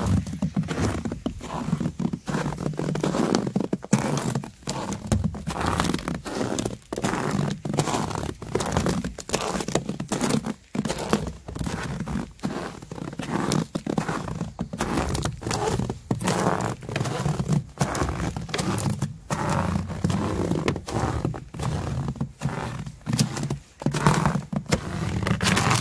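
Footsteps crunching through snow that has frozen slightly overnight, each step a short crisp crunch in a steady walking rhythm.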